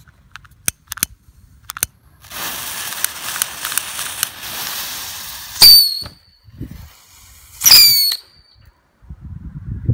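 A lighter clicks a few times, then about three seconds of hissing as the fuses of two Babypijl Fluit whistling mini rockets are lit and spray sparks. The two rockets then take off one after the other, each with one short shrill whistle, the second about two seconds after the first and falling slightly in pitch.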